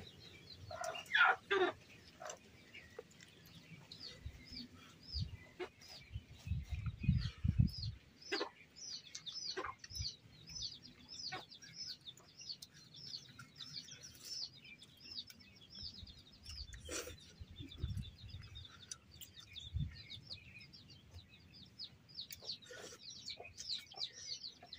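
Small birds chirping in a quick, repeated series of short high chirps, with a louder clucking call from a chicken about a second in. A few low thuds come around seven seconds in.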